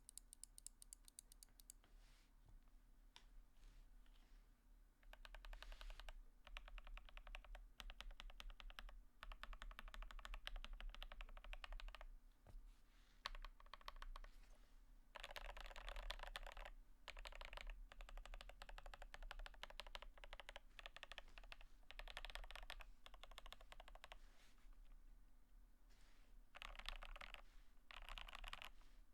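Mechanical keyboard with lubed and filmed Alpaca linear switches and GMK keycaps being typed on in fast runs of keystrokes, with short pauses between runs. The first few seconds hold only a few scattered key presses.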